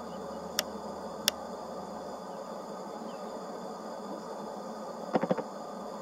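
Smith's bush squirrel cracking and chewing seeds: two sharp clicks in the first second and a half, then a quick run of crunches about five seconds in. Under it runs a steady insect chirring and an even hiss.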